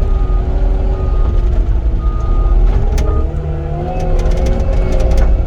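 Cat 259D compact track loader working: its diesel engine runs with a heavy rumble and a pitch that rises and falls as the load changes. A short high beep repeats a few times in the first half, and sharp clanks come in the second half.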